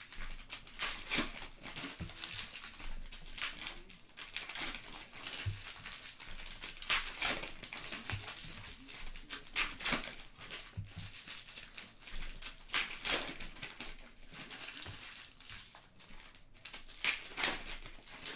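Foil trading-card pack wrappers crinkling and tearing as they are ripped open by hand, in quick irregular rustles.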